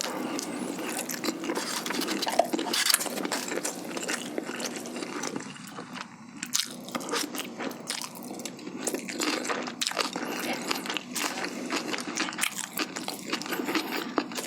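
Close-miked chewing and biting of spicy braised boneless chicken (jjimdak). A continuous run of wet mouth clicks and soft crunches.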